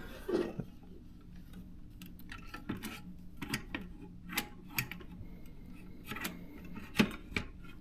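Scattered light clicks and knocks of a portable typewriter's metal and plastic parts as the machine is handled, with a sharper knock about seven seconds in, over a faint steady low hum.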